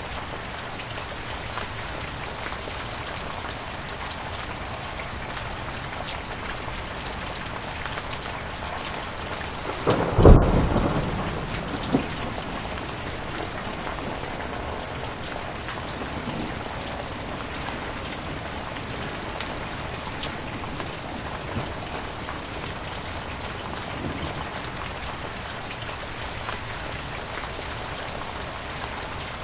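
Heavy rain falling steadily. A single clap of thunder comes about ten seconds in and rumbles away over the next couple of seconds.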